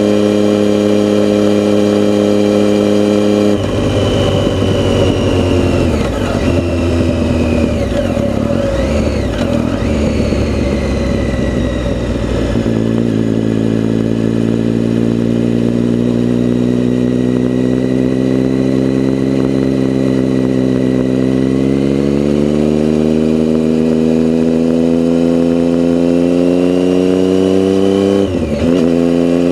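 A road vehicle's engine running, heard through an action camera's external mic. It holds a steady note at first, goes unsettled for several seconds with rough, noisy sound underneath, then climbs steadily in pitch as it accelerates, dipping briefly near the end as if for a gear change before climbing again.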